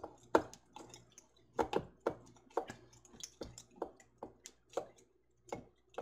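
Broth going into glass canning jars: an irregular run of short drips, splashes and light clicks.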